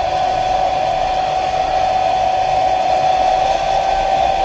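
Hair dryer running steadily: an even whine from its motor over rushing air, used to warm double-sided adhesive so it grips better.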